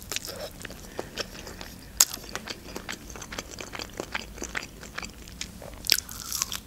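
Close-miked crunching and chewing of a crispy breaded spicy fried chicken wing, with one sharp crunching bite about two seconds in and another near the end.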